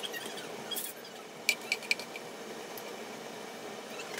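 Tempering seeds heating in oil in a non-stick pan: a steady low sizzle with a few sharp pops as the seeds start to crackle, one a little under a second in and three in quick succession around one and a half to two seconds in.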